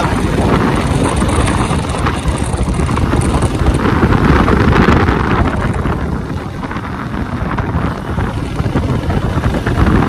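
Motorcycle on the move, its engine running under heavy wind buffeting on the microphone, swelling around the middle and easing a little after.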